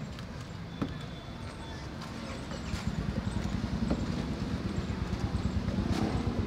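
A nearby engine idling with a fast, even low putter that gets louder about three seconds in, over steady street noise, with a few light clicks.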